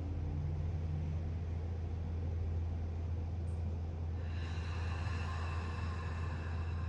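A slow, deep breath drawn in through the nose and let out through the mouth, over a steady low hum. About four seconds in, faint high steady tones come in.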